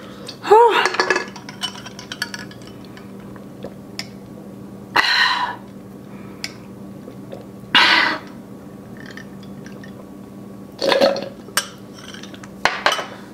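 A person drinking from a glass through a straw: a few short breathy sips and exhales, with light clinks of the glass. There is a brief vocal hum about half a second in.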